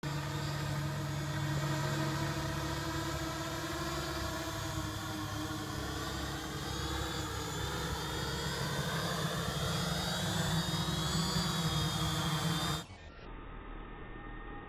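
3DR X8 octocopter's motors and propellers running as it comes down to land: a steady hum made of several tones that drift slightly in pitch. About 13 seconds in it cuts off suddenly as the motors stop on touchdown.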